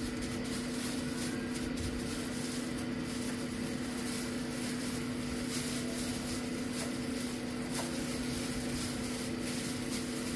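Electric air fryer running, with a steady fan hum that holds two low tones over an even whir.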